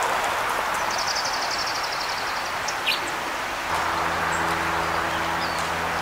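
A small songbird gives a fast, even, high trill for about a second and a half, then a single short high chip near the middle. From about four seconds in, a steady low mechanical hum joins in under the outdoor background noise.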